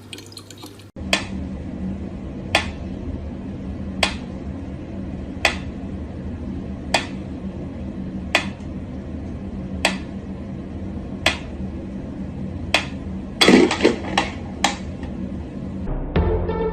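Sharp light taps or knocks repeating evenly about every second and a half over a steady low hum, with a short burst of louder clattering about thirteen and a half seconds in.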